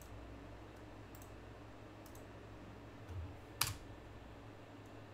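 Quiet room tone with a steady low hum, broken about three and a half seconds in by a soft thud and then one sharp computer-mouse click.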